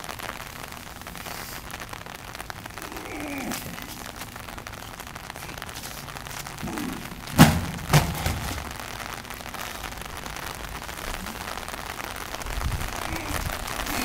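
A 400 lb tractor tire dropping flat onto concrete after a flip: a heavy thud about seven seconds in, then a smaller second thud half a second later as it settles.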